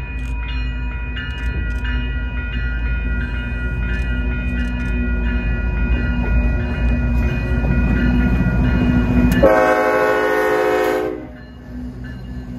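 Freight train rolling past with a steady low rumble and several steady high tones over it. About nine and a half seconds in, the rumble drops away and a loud train horn blast sounds for about a second and a half, then stops abruptly.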